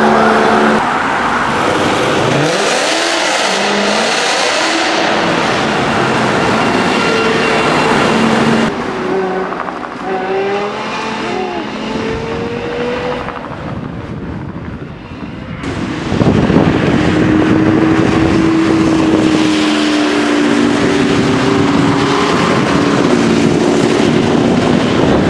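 High-performance supercar engines revving, accelerating and driving past, in a few separate takes that change abruptly about a third and two-thirds of the way through. The engine note rises and falls.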